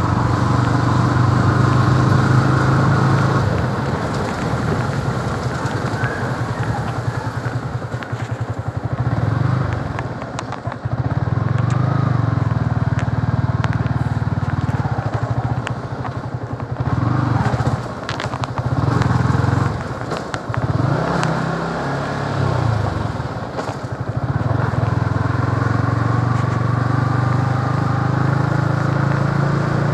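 Motorcycle engine running steadily as the bike rides along. The engine note drops away and picks up again a few times.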